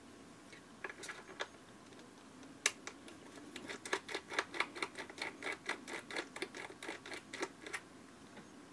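A run of rapid, fairly even small clicks, about five a second, as a precision screwdriver turns a tiny screw out of a Nikon Coolpix P520 camera body, after a few scattered clicks.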